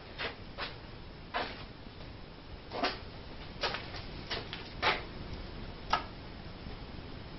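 Wooden table frame and tools being handled: irregular light knocks and clicks, about ten of them spaced unevenly, the sharpest a click near the end.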